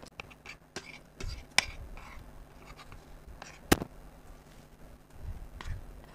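Chopsticks and spoons clicking and scraping against plates of instant noodles as they are stirred and eaten. There are scattered small clicks, with one sharp click the loudest, a little past halfway.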